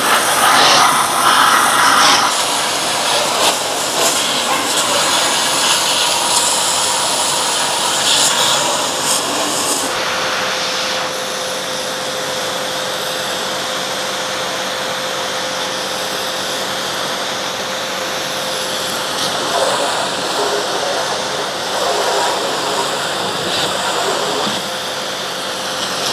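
Shakti S3 electric pressure washer running, its high-pressure water jet spraying with a steady hiss. About ten seconds in the sound turns duller as the jet hits a car's windshield, heard from inside the car.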